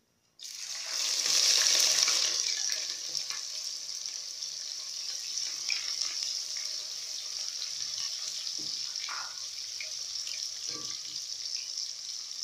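Sliced red onions dropped into hot vegetable oil, setting off a sudden sizzle that is loudest for the first second or two, then settles to a steady frying sizzle. Light scrapes of a spatula stirring the onions in the pot come through now and then.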